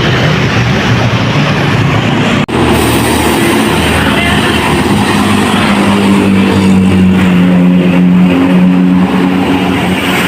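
Large road vehicles passing close by, most likely tour buses: loud engine and tyre noise. A sudden cut about two and a half seconds in, after which a vehicle's steady low engine drone builds and holds for several seconds.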